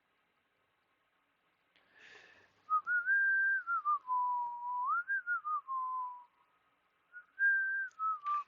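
A person whistling a slow tune: a single clear note stepping and gliding between pitches, in two phrases with a short pause between them. A brief rustle comes just before the whistling starts.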